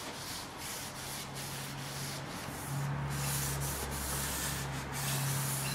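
Hand abrasive scrubbing back and forth over the metal bed of a wood lathe to take off surface rust, a scratchy rasp in repeated strokes. A low steady hum comes in about a second in and grows louder about three seconds in.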